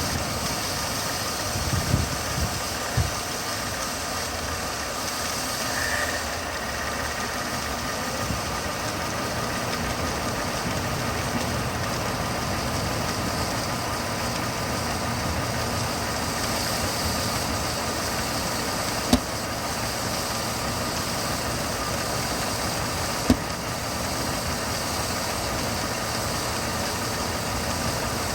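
2006 Mercedes C230 engine idling steadily with a constant hiss, which the owner takes for a vacuum leak from a crack in the intake manifold. A few sharp clicks stand out, two about two and three seconds in and two more later.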